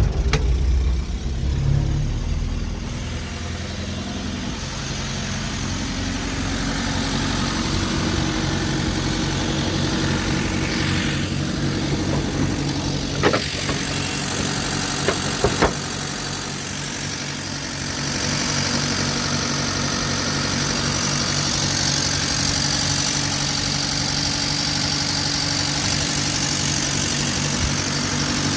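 1966 Land Rover Series 2A engine just after starting, louder for the first couple of seconds and then idling steadily. A few sharp clicks come around the middle.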